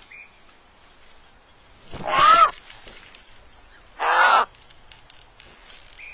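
Cartoon vulture calling twice, about two seconds apart: two coarse, crow-like caws, each about half a second long.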